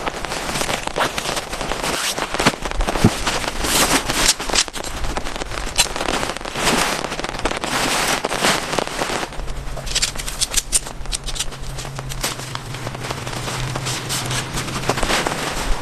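Heavy rain: dense, irregular, sharp drop impacts crackling on a close surface over a steady hiss. A low steady hum joins from about ten seconds in and stops near the end.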